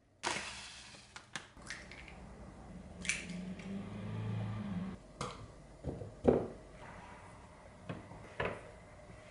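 Kitchen handling sounds: scattered clicks and knocks of a plastic blender cup, dishes and utensils being set down and moved on a worktop, with one louder knock about six seconds in.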